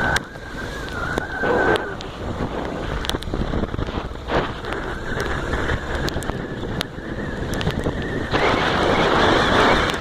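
Honda XR250 Tornado's single-cylinder four-stroke engine running under way, with wind buffeting the microphone. A louder rush of noise swells near the end.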